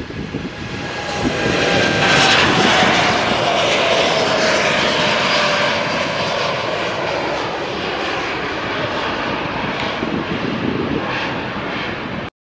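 Jetstar Boeing 787 Dreamliner's twin turbofan engines at takeoff power as it lifts off and climbs past. A loud jet roar builds over the first two seconds, with a whine that falls in pitch as the aircraft passes, then slowly fades.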